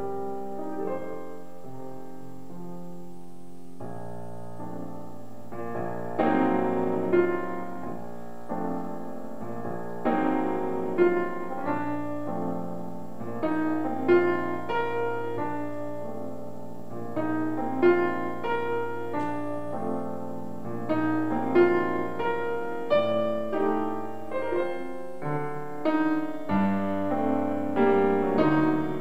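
Grand piano played solo: a quieter start, then a held bass under accented chords that come about every two seconds, growing louder near the end.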